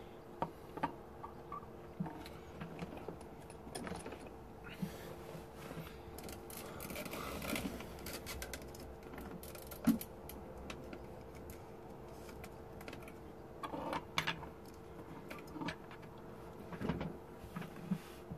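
Small tools and a circuit board being handled on a workbench, with light clicks and taps scattered through and a few louder knocks, over a steady hum.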